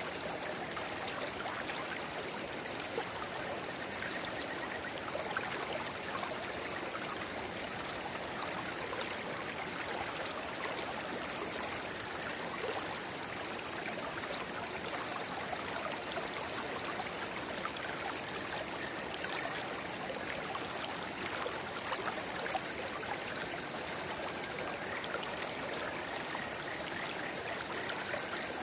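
Spring water babbling and trickling as a small spring-fed runlet pours into a river: a steady, unbroken flow.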